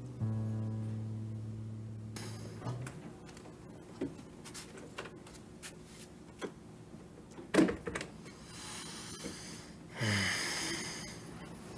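A held low note of soundtrack music ends about three seconds in. Then come scattered light knocks and taps of someone moving about a bedroom, with one louder thump in the middle and a breathy rustle near the end.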